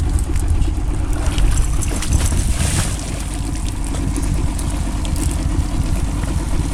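Yamaha 40 outboard motor running at idle with a steady low rumble, with wind on the microphone. About two and a half seconds in there is a brief splashing as the hooked Chinook salmon thrashes at the surface beside the boat.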